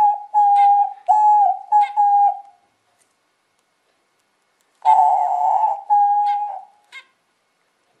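Diamond dove cooing: a quick run of five short, clear coos, then after a pause of about two seconds a coarser coo followed by two shorter notes.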